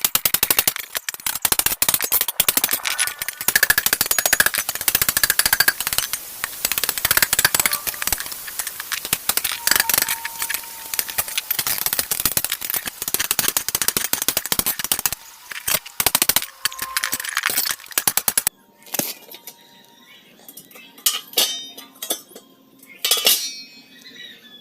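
Gas welding on a front bumper reinforcement: a fast, continuous crackle of the weld. It stops about three quarters of the way through, leaving only scattered clicks and taps.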